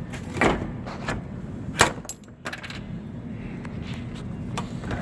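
A few irregular clicks and knocks, the loudest about two seconds in, from the truck's light wiring connectors being handled and checked, over a steady low hum.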